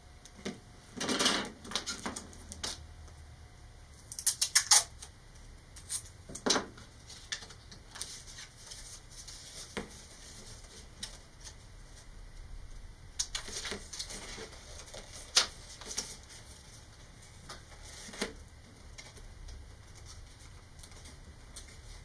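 Hands working masking tape onto a paper model rocket body tube: irregular taps, clicks and crackly rustles of tape and tube being handled, loudest about a second in and again around four to five seconds in.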